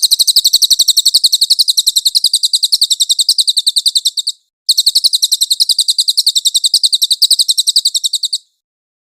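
Cililin bird song: a fast, even trill of high chirps, about ten a second, with a short break about four and a half seconds in, ending shortly before the end.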